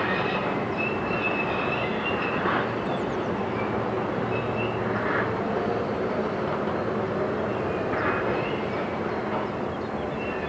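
Harbour portal crane squealing, metal rubbing on metal: high thin squeaks over a steady mechanical rumble, swelling about every two and a half seconds.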